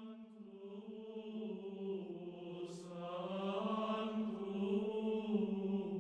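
Intro music of chant-like voices holding one long, steady low note, slowly growing louder.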